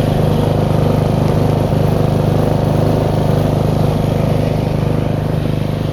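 Small engine of a snowblower running steadily at a constant speed, a continuous low drone.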